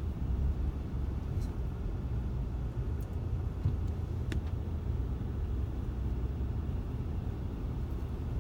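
Steady low rumble of a car driving slowly, heard from inside the car, with a few faint clicks.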